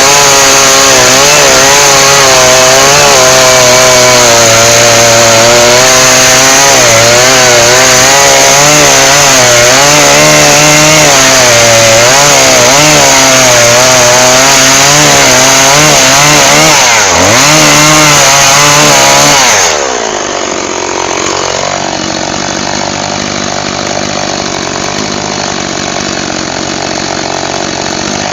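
Two-stroke chainsaw running at high revs, its pitch wavering as it cuts firewood. About two-thirds of the way through it drops to a quieter, steadier running note.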